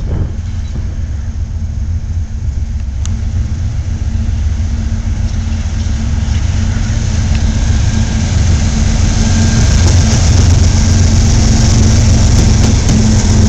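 Union Pacific diesel-electric freight locomotives running under power as they approach and pass close by, a steady low engine drone growing louder, with steel wheels on rail adding a rising hiss as the units draw alongside near the end.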